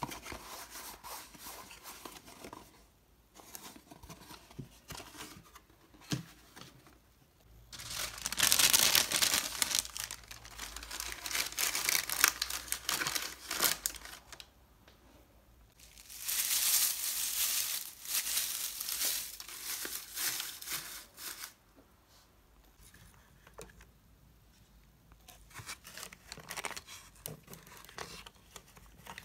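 Paper crinkling and rustling as it is handled and folded, in two long loud spells a few seconds apart, with softer handling of a paper box and small items before, between and after.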